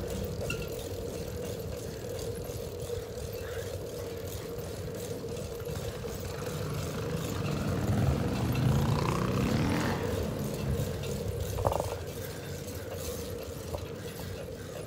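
Steady road and wind noise from riding a bicycle along a street, with a faint steady hum throughout. A vehicle passes about eight to ten seconds in, and there is a short sharp click near twelve seconds.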